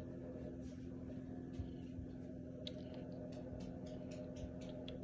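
Quiet room tone: a steady low hum, with a run of faint, short clicks from about halfway through.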